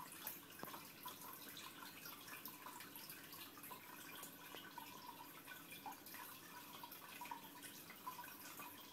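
Faint, steady bubbling and trickling of aquarium water, a constant patter of small pops and drips from the tank's aeration bubbles, with a faint low hum underneath.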